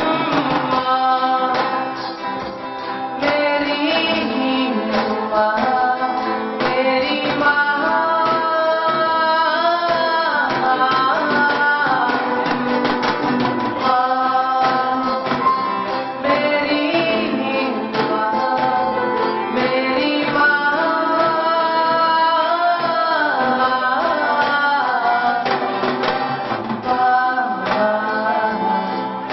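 Live rock band playing through a PA: drum kit, guitars and an electronic keyboard, a melody moving over steady drumming.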